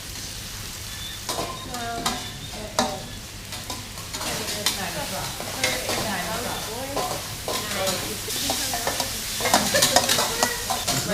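Pad Thai stir-frying in a wok after the sauce goes in. The food sizzles, and the spatula scrapes and knocks against the pan. The sizzle grows louder in the last few seconds.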